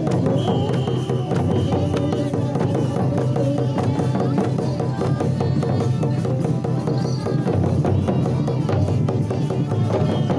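Santhali lagre folk music: drums and other percussion struck in fast, dense strokes over a steady low-pitched backing, without a pause.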